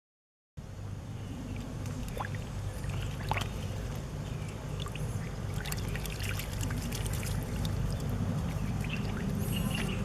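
Muddy water sloshing and trickling, with scattered small splashes and clicks over a steady low rumble. It starts after a brief dropout.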